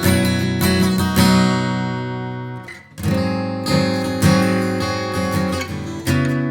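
1973 Martin D-35 dreadnought acoustic guitar, spruce top with rosewood back and sides, strummed in full chords. One chord is left to ring and fades out almost three seconds in, then the strumming picks up again.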